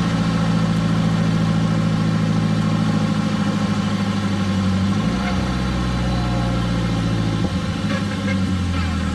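The truck's turbocharged SR20DET four-cylinder engine running steadily, its note shifting about five seconds in and again a couple of seconds later.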